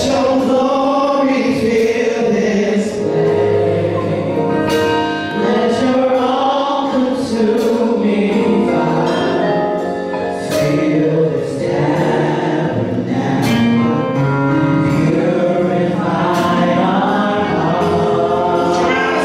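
Gospel praise team of women singing in harmony into microphones, backed by keyboard and a drum kit with cymbal crashes every couple of seconds.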